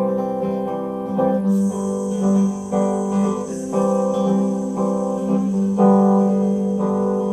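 Acoustic guitar playing a slow passage of ringing chords, changing chord about once a second.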